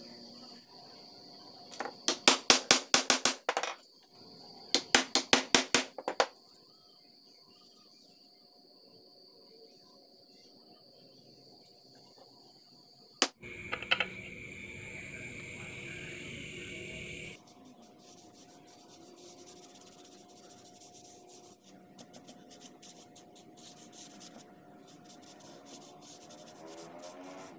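Two loud bursts of quick back-and-forth strokes of wood rubbing on wood, about five a second, over a steady high cricket trill.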